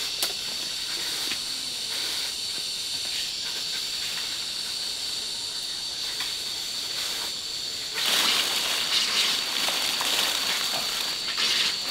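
Insects buzzing steadily in an even high tone, with rustling and crackling of leafy plants being handled and plucked by hand that grows louder about eight seconds in.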